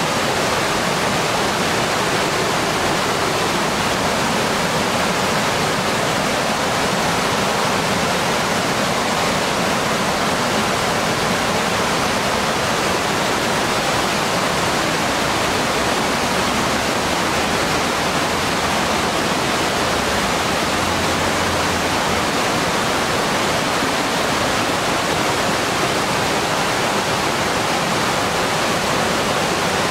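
Steady rushing of water from a low, wide waterfall pouring over rock ledges and running through the rocky shallows below it.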